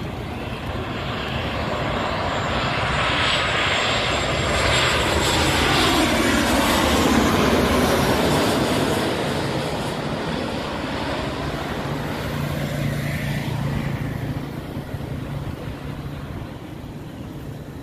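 Twin-engine jet airliner on landing approach passing low overhead: the engine noise builds to a peak about seven seconds in, its whine sliding down in pitch as the plane goes by, then eases off into a lower, steadier drone.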